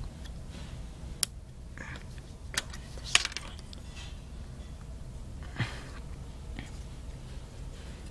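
A few sharp plastic clicks and taps from handling Snap Circuits pieces close to the phone's microphone, over a low steady hum.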